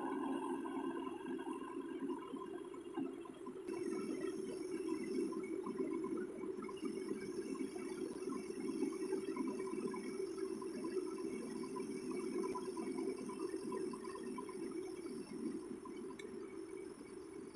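A heavy tow truck's diesel engine running steadily while it works the winch, a low, even rumble with faint scattered ticks over it.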